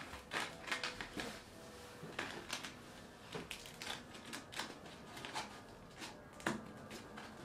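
Scattered light clicks and knocks, a dozen or so at irregular spacing, from hard parts being handled; no motor or grinder is running.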